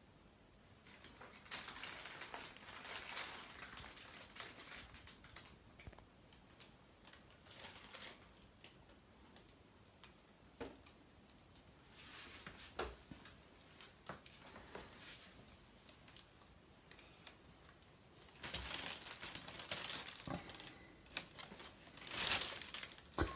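Thin black plastic bin bag rustling and crinkling in short bursts as a cat moves against it and climbs inside, loudest near the end.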